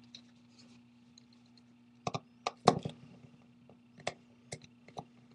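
Scattered small, sharp clicks and taps of a precision screwdriver and tiny screws on an opened iPhone 4S's metal frame and tabletop as screws are taken out, starting about two seconds in, with a faint steady hum underneath.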